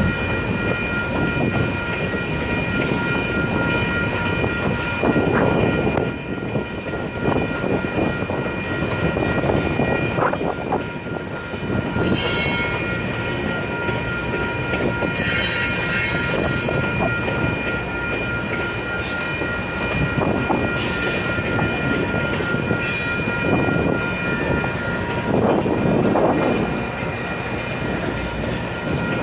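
Loaded grain hopper cars of a long freight train rolling slowly past, wheels clattering over the rails, with steady high-pitched wheel squeal from the curves and several sharper squeals breaking in.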